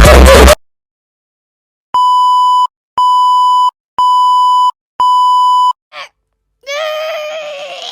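A loud sound cuts off abruptly half a second in; after a moment of silence, a sound-effect beep tone like a censor bleep sounds four times, each about three-quarters of a second long, one a second. Near the end a brief sound and then a wavering, slightly falling pitched sound follow.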